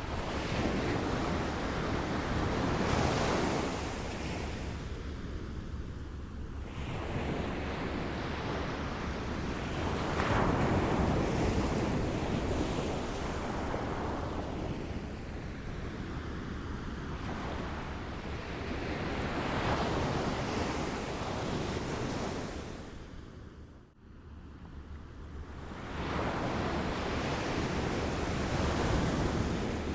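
Small waves lapping at a shore, each wash swelling and ebbing about every eight to nine seconds, with a brief drop-out about three-quarters of the way through.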